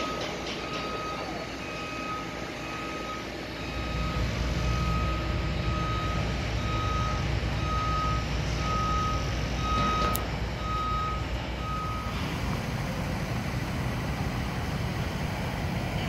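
Heavy construction vehicle's reversing alarm beeping about once a second, one steady tone, stopping about twelve seconds in. A low diesel engine rumble comes up about four seconds in, and there is one sharp knock near ten seconds.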